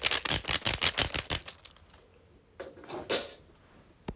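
The loudest clicking wheel on a small 3D-printed plastic fidget being rolled, giving a fast, even run of sharp clicks, about seven a second, that stops about a second and a half in. After it come a couple of faint rubbing sounds and a single click near the end.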